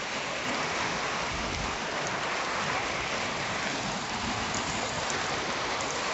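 Steady rain falling on wet concrete and ground, with a few faint drop ticks near the end.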